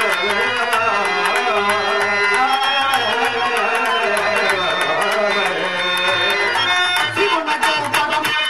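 Live traditional stage music: tabla strokes keep a steady beat under a long melodic line that bends and wavers in pitch.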